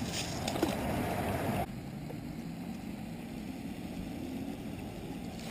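Outdoor background noise: a hiss cuts off abruptly about a second and a half in, giving way to a steady low rumble.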